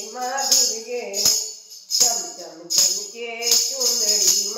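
A woman singing a devotional bhajan to Mata ji, accompanied by jingling hand percussion struck on a steady beat.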